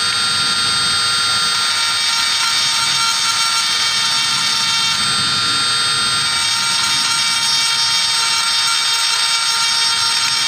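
Handheld high-speed rotary tool running with a steady high whine, its small bit grinding a wear burr off the aluminium of a BMW E36 mechanical air flow meter where the measuring flap rubs and sticks.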